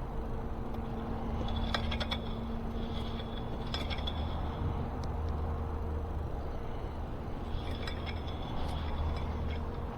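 Metal tools clinking and scraping against e-bike brake parts during a brake pad change, in short clusters of sharp, ringing clicks a few times, over a steady low hum.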